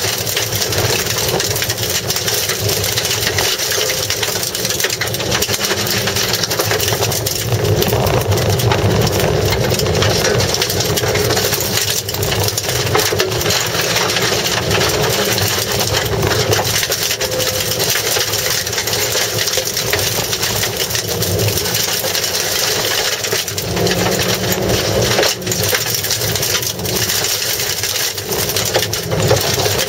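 Mazda Demio engine running hard under load, heard from inside the cabin, with loose gravel crunching and rattling against the car's underside as it is driven on a dirt course. The noise is loud and steady throughout.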